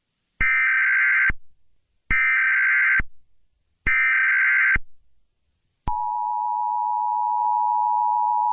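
Emergency Alert System header: three short bursts of digital data tones, each just under a second long and about a second apart. About six seconds in, the steady two-tone attention signal begins.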